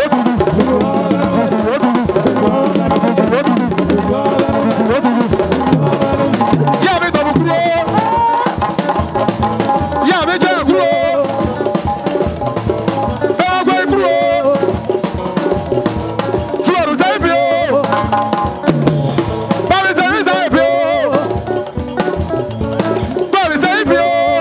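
Live band music with a drum kit to the fore, loud and without a break, with a wavering melody line over it.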